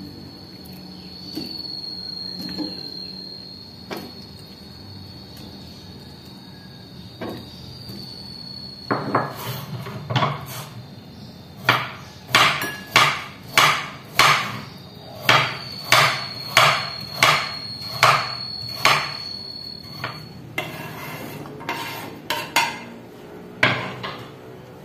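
Kitchen knife chopping a carrot on a wooden cutting board: a run of sharp chops about twice a second, starting about nine seconds in and stopping about twenty seconds in, with a few single knocks before and after.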